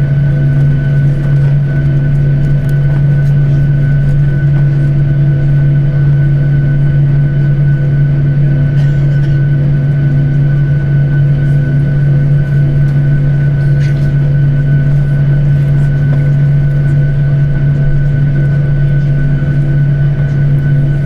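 Steady jet engine drone heard inside an airliner cabin: a loud, unchanging low hum with several fainter steady tones above it.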